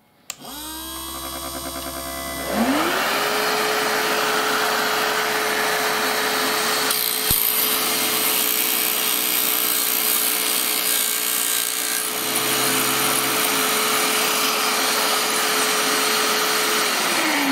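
A vacuum cleaner starts up, and a couple of seconds later the cutter's 12-volt DC motor spins up its diamond cutting wheel, its pitch rising and then holding steady at about three-quarter power. A carbon arrow shaft is ground through as it is pushed in and rotated against the wheel. Near the end the motor winds down with a falling pitch while the vacuum keeps running.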